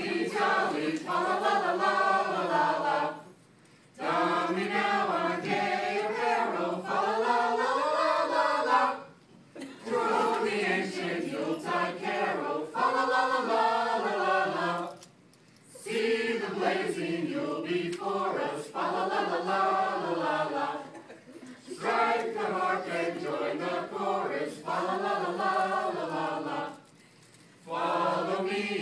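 A small group of Christmas carollers, men and women, singing a carol unaccompanied, in phrases of about five to six seconds with short pauses for breath between them.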